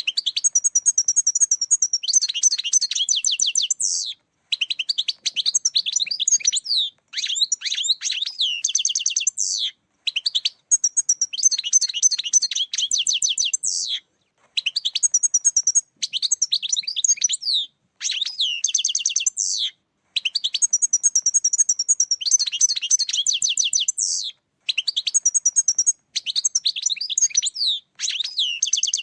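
European goldfinch singing: fast, twittering song phrases of one to four seconds each, about ten of them, separated by brief pauses.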